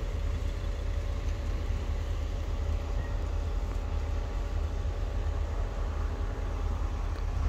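Northern Ireland Railways diesel multiple-unit train running at the station platform: a steady engine hum, with low wind rumble on the microphone.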